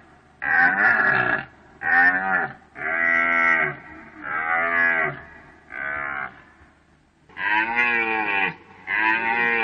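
Deer calling: a run of seven short calls, each about a second long, that rise and then fall in pitch, with short gaps between them.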